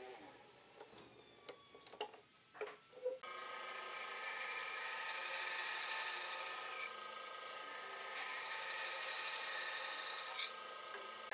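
A few light knocks, then about three seconds in a band saw starts cutting through a wooden board: a steady hiss with a faint whine under it.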